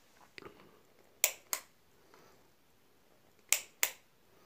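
Cable float level switch clicking as it is tilted: two pairs of sharp clicks, about two seconds apart, as the switch inside the float flips, turning the load on and off.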